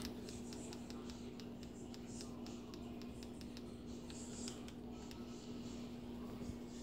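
Faint room tone: a steady low hum with soft, irregular little clicks scattered through it.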